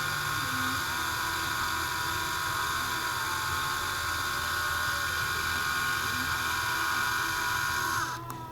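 Power drill running steadily with a high whine as a small bit drills out the centre of a chainsaw fuel line nipple; about eight seconds in it winds down and stops.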